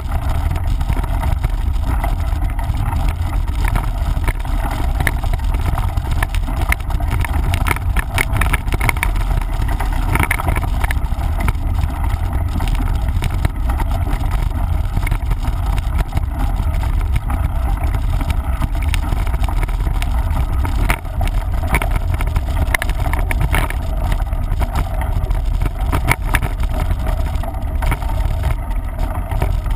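Heavy wind rumble on a camera microphone during a mountain-bike ride, with frequent clicks and rattles from the bike jolting over a rough dirt trail.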